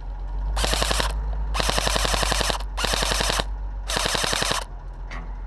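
Airsoft electric rifle firing four short full-auto bursts of rapid clicking shots, one after another.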